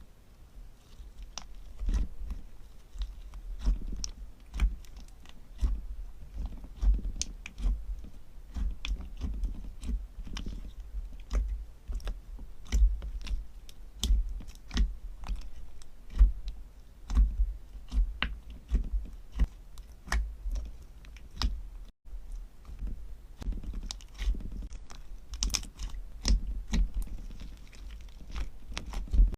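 Hands squishing and mixing slime, making irregular sticky clicks and crackles over soft low squelching thuds.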